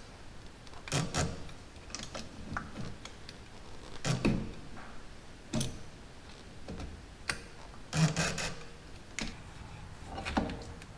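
Metal filter wrench clicking and knocking against a spin-on fuel filter as it is worked loose from the engine: a scattered series of sharp clicks and knocks, the strongest about a second in, about four seconds in and around eight seconds in.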